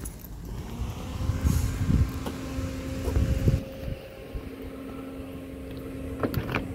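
Car engine idling close by, a steady low hum, with a few heavy muffled thumps on the microphone in the first half and a short click near the end.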